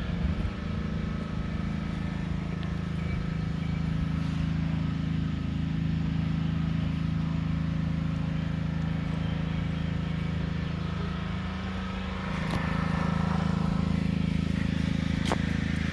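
Fuel-injected LS1 5.7 L V8 running at a steady idle, getting louder about twelve seconds in.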